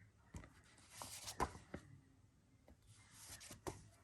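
Faint rustling and light taps of comic books being handled and set down one after another, with a few sharp clicks among soft rubbing sounds.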